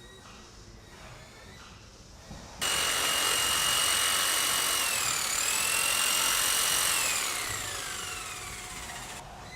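An electric power tool's motor starts suddenly about two and a half seconds in and runs with a high-pitched whine. It dips briefly in pitch as it takes load, then is switched off and winds down with a falling whine.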